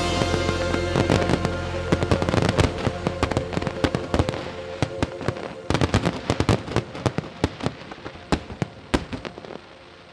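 Fireworks display: many sharp bangs and crackling reports from bursting shells, over a sustained music chord that fades away over the first few seconds.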